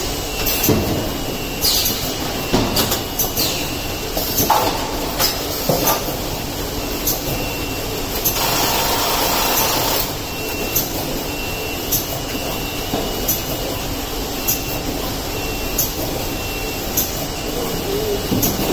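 Automated case packing and palletizing line running: conveyors and a palletizing robot clattering steadily, with frequent short knocks and clacks as cases move and are set down. About eight seconds in, a hiss lasts for about two seconds, and in the second half a faint high tone pulses on and off about once a second.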